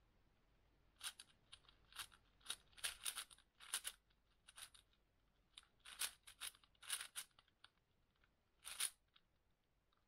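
Layers of a speed puzzle cube being turned by hand: a run of quick, irregular plastic clicks and clacks in short flurries, with a brief pause midway and one sharp clack near the end.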